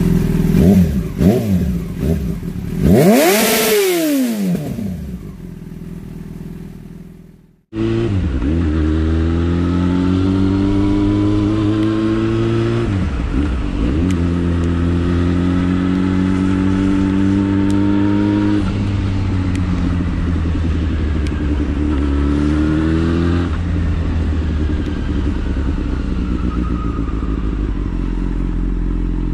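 Intro sound effects, a loud whoosh about three seconds in, fade out. About eight seconds in, a Yamaha FZ6's inline-four engine breathing through a LeoVince exhaust fitted with its dB killer takes over. Its note climbs steadily in pitch under acceleration and dips back at each of a few gear changes.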